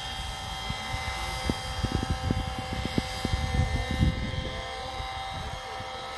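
Radio-controlled scale model of a Sikorsky S-76 helicopter hovering low, giving a steady high-pitched whine from its motor and rotor drive. Underneath is a gusty low rumble that is strongest between about one and four seconds in.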